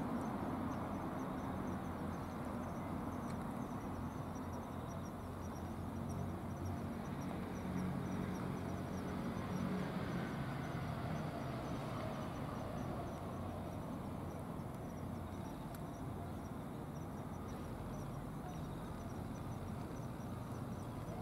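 Steady low outdoor background rumble with a faint high chirring running through it.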